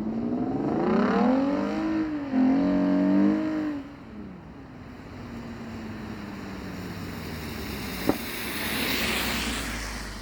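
Lexus GS350 F Sport's V6 with a newly fitted active valved exhaust, revving up over the first second, held for a few seconds, then falling back. A rushing noise swells near the end.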